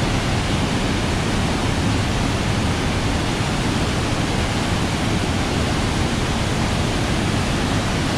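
Loud, steady rush of falling water, an even roar with no breaks.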